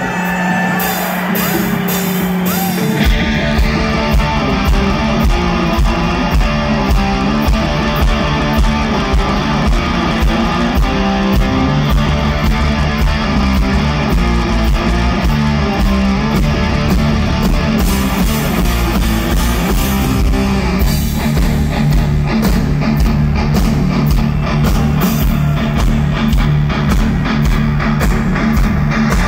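Live hard rock band playing: a held electric guitar note, then the full band comes in about three seconds in, with a heavy electric guitar riff over bass and a steady drum beat.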